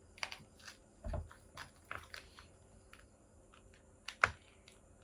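Small plastic clicks and taps as a ball-joint stand piece is fitted into the belly of a plastic action figure. There is a soft thump about a second in and a sharper click a little after four seconds.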